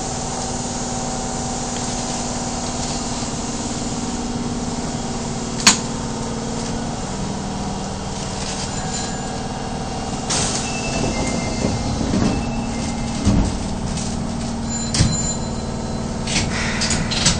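Interior of an Osaka Metro Tanimachi Line subway car pulling out of a station: a steady motor and running hum. A single sharp click comes about six seconds in, and irregular knocks and clunks follow from about ten seconds on as the car rolls over the track.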